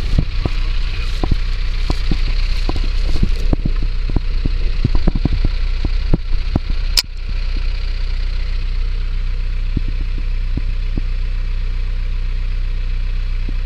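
Mahindra Roxor side-by-side's diesel engine idling steadily, with scattered knocks and rattles over the first half and one sharp click about seven seconds in, after which it runs on evenly.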